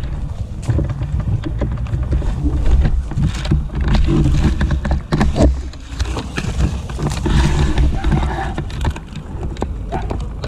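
Loud, uneven rumble of wind and handling on a body-mounted action camera's microphone as the wearer moves, with irregular knocks and clicks.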